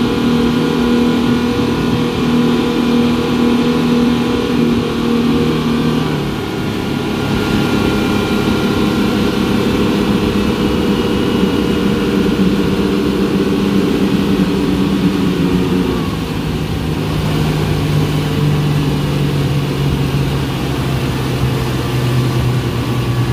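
Twin 250 hp Yamaha outboard motors driving a wooden speedboat, a steady engine drone whose pitch steps down about six seconds in and drops again about sixteen seconds in.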